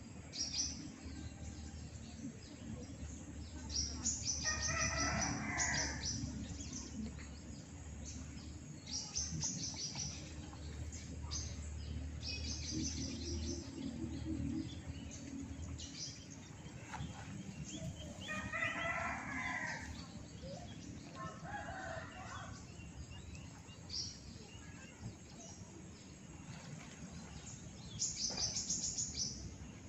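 A rooster crows about four seconds in and again around eighteen to twenty-two seconds, over short high-pitched bursts that recur every few seconds and a steady low hum.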